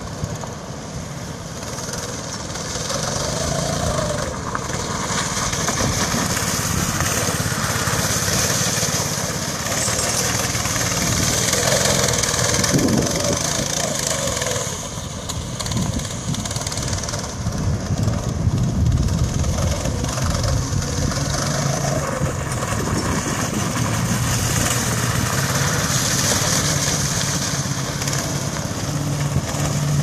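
Homemade go-kart's Honda 160 cc single-cylinder four-stroke engine running. Its pitch rises and falls over and over as the kart is driven and slid around the field.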